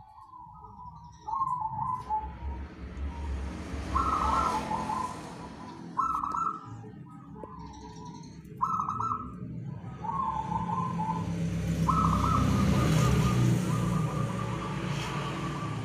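Local zebra dove (perkutut) singing its trilled cooing song: short rolling phrases, repeated every second or two, over a broad rushing background noise that swells twice.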